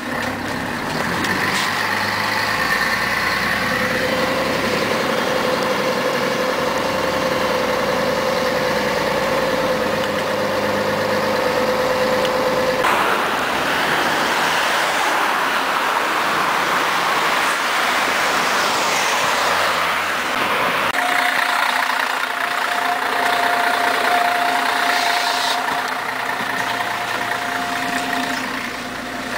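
1994 Scania CN113CLL city bus under way, heard from inside the passenger cabin: engine and drivetrain running steadily with road noise. A whine climbs slowly in pitch and cuts off about 13 seconds in, giving way to a rushing noise. A higher whine returns for several seconds near the end.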